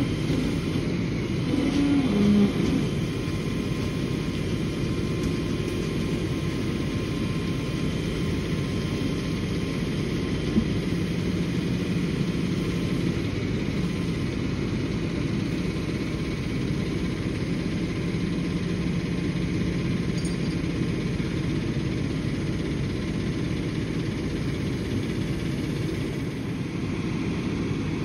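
Flatbed tow truck's engine running steadily, powering the winch that drags the crashed box truck back toward the road.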